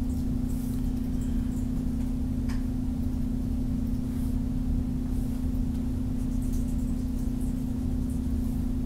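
Steady low background hum, one held tone over a low rumble. Faint clicks about two and a half and four seconds in, from a computer mouse.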